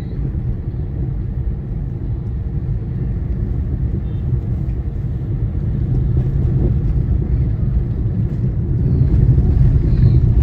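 Steady low rumble of a car on the move, heard from inside the cabin, growing a little louder toward the end.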